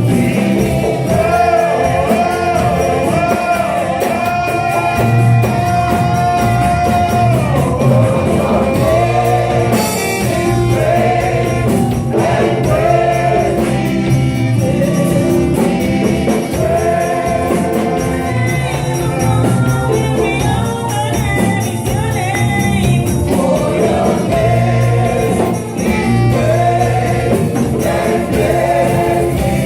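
Gospel worship music: singing voices with a steady band accompaniment, the voices holding one long note about six seconds in.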